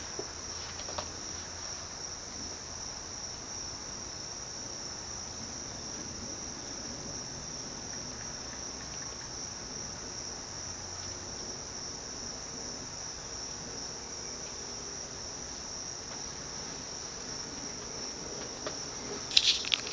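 SMC Laguna KA36 industrial ceiling fan running steadily at a slow low speed on its variable-speed control, a quiet even whir under a constant high-pitched whine.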